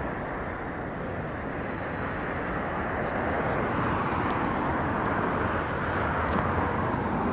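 Steady city street traffic noise from cars on a wide road, growing a little louder in the second half as a car passes close by.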